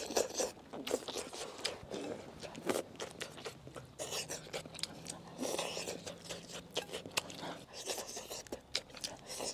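Close-up eating sounds of a person chewing mouthfuls of rice soaked in hotpot broth, with short clicks of chopsticks against a porcelain bowl.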